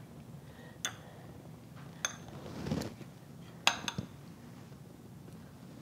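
A metal fork clinking a few times against a small ceramic bowl while it pokes and lifts rehydrated freeze-dried chicken, with a brief soft scrape between the clinks.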